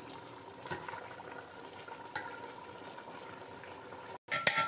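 Chicken pulao's rice and stock simmering and bubbling in an aluminium pot as the liquid cooks down, the rice nearly done before being set on dum. A few faint clicks, and a brief cluster of sharper clinks near the end.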